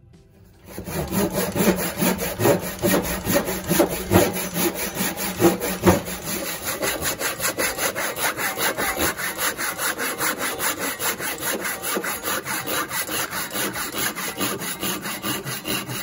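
Hand saw cutting through a wooden board in quick, even back-and-forth strokes, starting about a second in. The first few seconds of strokes are heavier.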